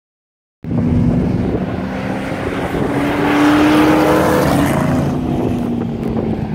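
Race car engines running hard as cars go past close by, starting about half a second in, loudest about halfway through, then easing off as they move away.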